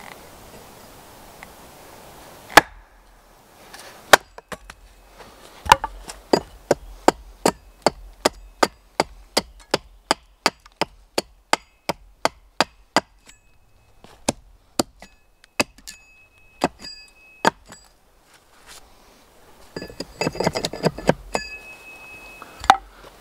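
Broad axe hewing a board held upright on a wooden chopping block: sharp chops into the wood, settling into about two a second for several seconds, then slower, with a faint metallic ring after some strikes. A few seconds of rustling and scraping near the end, then one more loud chop.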